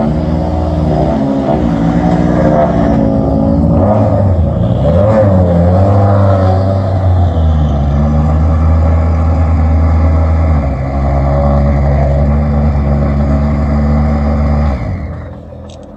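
Rally car engine running while parked, its revs rising and falling in short blips over the first few seconds, then held steady before it winds down and stops near the end.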